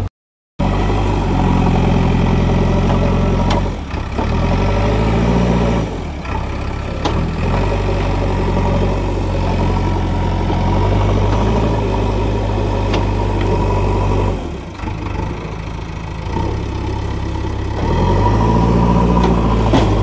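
JCB backhoe loader's diesel engine running under working load, its revs rising and falling as the machine digs and pushes through mud and water; the engine note climbs sharply twice, around a third of the way in and near the end.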